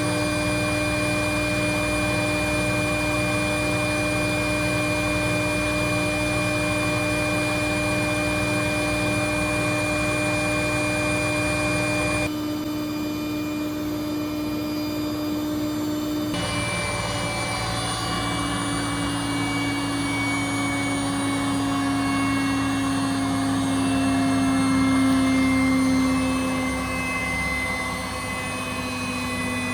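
Beko washing machine motor running in its service test: a steady whine that changes about halfway through and then slowly falls in pitch.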